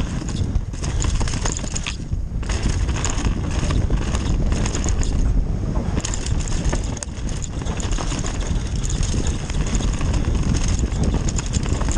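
Mountain bike ridden fast down a dirt forest trail: tyres rolling over dirt and roots with frequent rattles and knocks from the bike over bumps, under a heavy low rumble of wind buffeting the microphone.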